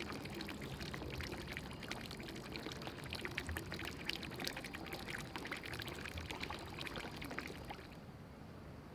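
Water pouring and splashing, a dense patter of small splashes that stops about eight seconds in.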